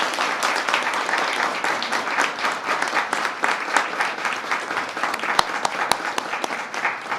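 Audience applauding with steady clapping from many hands, thinning near the end.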